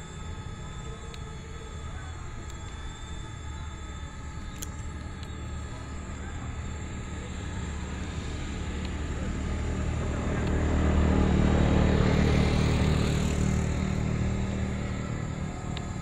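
A motor vehicle passes by, building over several seconds to its loudest a little past the middle, then fading away. Under it runs a steady hum with a few constant high tones.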